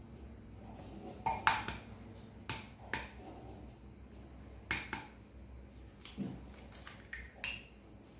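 Eggs being cracked and their shells handled: a scattered series of sharp clicks and taps, several in quick pairs.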